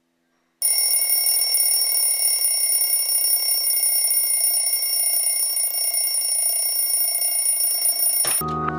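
A bell alarm ringing loud and without a break, starting suddenly about half a second in and cutting off abruptly shortly before the end.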